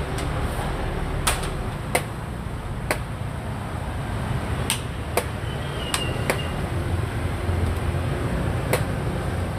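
Sharp, irregular clicks of xiangqi pieces being set down on a wooden board and chess clock buttons being pressed during a fast game, about nine clicks in all, over a steady low background rumble.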